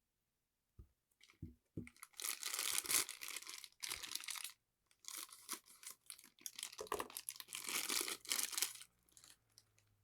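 Plastic packaging of a boxed figure being crinkled and torn open by hand: a few light knocks about a second in, then two long stretches of crackling.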